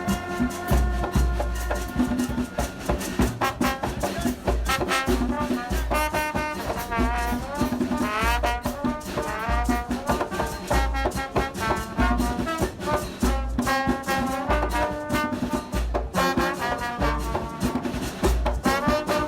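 Background music with a steady beat and a brass melody of trombone and trumpet lines.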